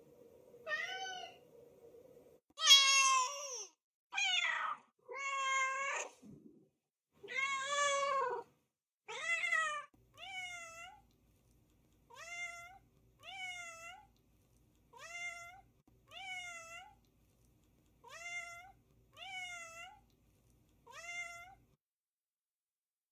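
Domestic cats meowing. First come about six separate meows that differ in pitch and length. From about ten seconds in, the same short, high meow that rises and then falls repeats about eight times at even spacing.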